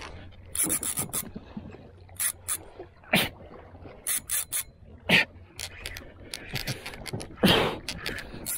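A spinning reel and line under heavy load as a big fish is fought on a hard-bent rod: bursts of short scraping clicks. Three strained, hard exhalations from the angler, spaced about two seconds apart, are the loudest sounds.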